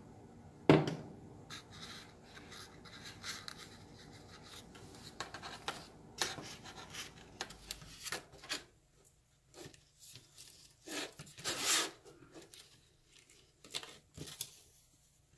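Hands working on a small foam RC airplane's wing, fuselage and servo wires: light rubbing, scratching and tapping, with a sharp click about a second in and a longer scratchy rub a little before the end.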